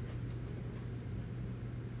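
A steady low mechanical hum with a rumble underneath, unchanging throughout.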